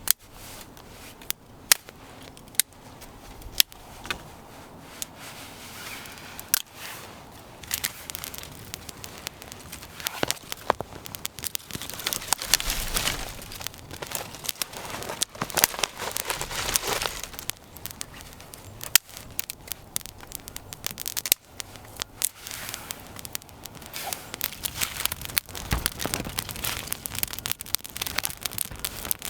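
Wood campfire crackling, with irregular sharp pops and stretches of hiss.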